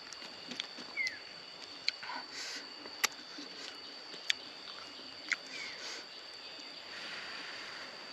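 Steady high-pitched insect drone, with a few sharp mouth clicks and smacks as a man chews rice, and two brief falling bird chirps.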